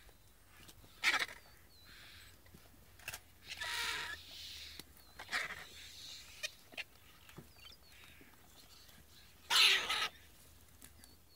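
Vultures squabbling at a carcass: a series of short, hoarse hisses and rasps with a few scattered clicks. The loudest hiss comes near the end.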